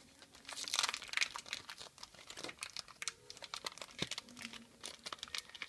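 Thin plastic bag and tape crinkling and tearing as they are peeled by hand off a trading card: a dense, irregular crackle, loudest about a second in.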